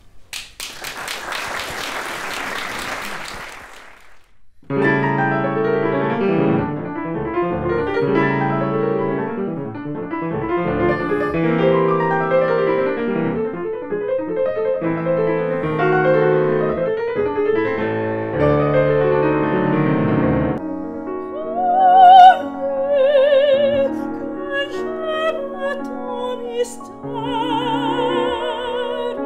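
An audience applauding for about four seconds, then a grand piano playing classical music solo. About two-thirds of the way through it changes to a soprano singing operatically with vibrato, accompanied by piano.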